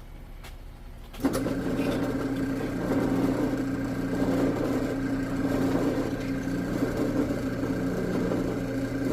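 Electric drill press switched on about a second in, its motor then running steadily with a constant hum as it drills mounting holes in a steel bar.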